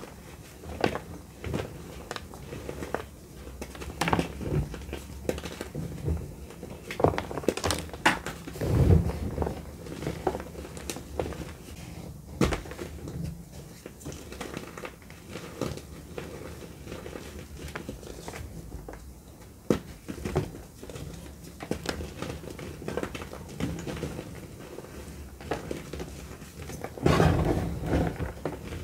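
Dry gym chalk crushed and squeezed in bare hands: irregular crunching and crumbling of chalk lumps into powder. The loudest runs of crunches come a few seconds in and again near the end.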